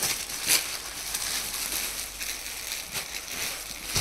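Clear plastic garment packaging crinkling and crackling while a folded suit is pulled out of it and handled, with a couple of sharper crackles, one about half a second in and one near the end.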